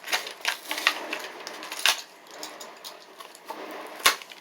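Plastic blister pack and cardboard card of a Hot Wheels toy car being handled and pulled open: irregular crackling and clicking, with a sharp snap about two seconds in and another near the end.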